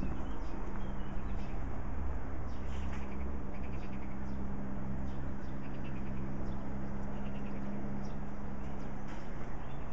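Small birds chirping in short trills, with a steady low hum running underneath.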